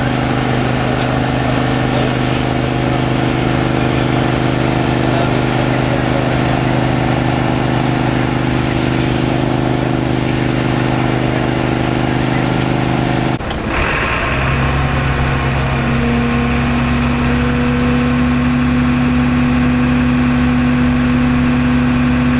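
An engine running steadily at idle. About 13 seconds in, the sound cuts abruptly to a second steady engine drone at a different pitch.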